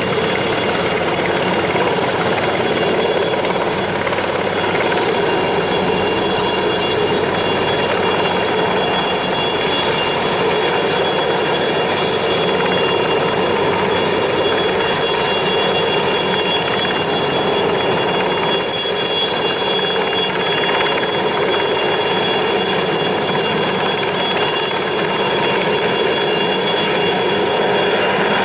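Light turbine helicopter flying low overhead with a sling line: a steady high-pitched turbine whine over a constant rush of engine and rotor noise.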